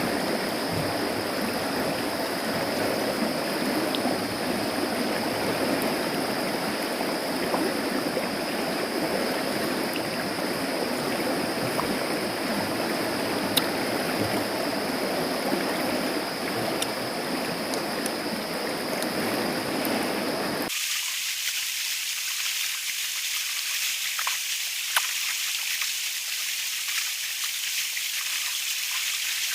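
Fast-flowing river water rushing steadily, with a thin steady high tone over it. About two-thirds of the way through it cuts off abruptly to a thinner high hiss.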